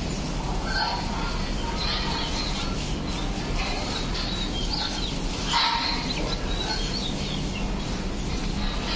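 Water from a garden hose spraying onto a bull's back and splashing onto the wet floor, a steady hiss, with small birds chirping throughout.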